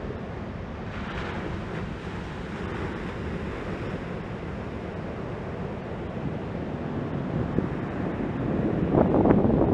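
Ocean waves breaking and washing in, a steady rushing hiss of surf, with wind buffeting the microphone in rough gusts that grow loud near the end.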